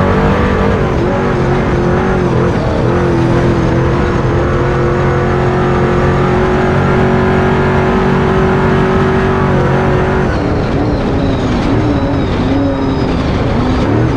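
Off-road pre-runner truck's 500-horsepower engine under hard driving in the dirt, held at a steady pitch for several seconds, then revving up and down through the last few seconds.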